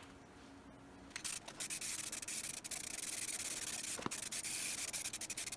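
Aerosol spray can of automotive primer hissing as it coats a steel wheel. The spray starts about a second in, with brief breaks in the hiss.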